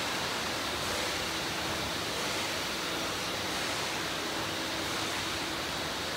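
Steady machinery noise from a running sheet-fed metal-printing line: an even hiss with a faint hum that comes and goes, no distinct knocks or rhythm.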